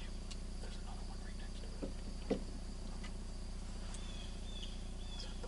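Steady high trilling of crickets, with a few short falling bird chirps about four seconds in. A single sharp tap sounds a little over two seconds in.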